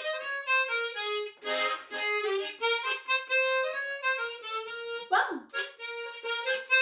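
Tremolo harmonica playing a melody in short, changing notes. About five seconds in there is one brief swooping sound that rises and falls in pitch, an imitated animal call worked into the tune.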